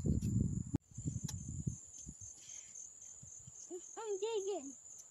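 Steady high-pitched insect chorus running underneath, with low rumbling noise on the microphone for the first two seconds. About four seconds in, a toddler gives a short wordless sing-song vocalisation.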